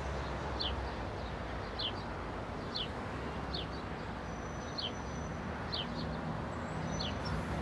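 A bird calling over and over, a short high chirp falling in pitch about once a second, over a steady low rumble of outdoor background noise.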